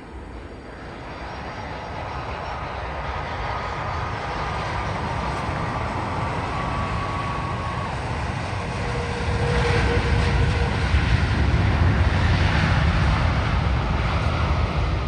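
Airbus A330-300 airliner's jet engines on landing, growing louder over the first half and loudest in the second half, a deep rumble with a faint whine.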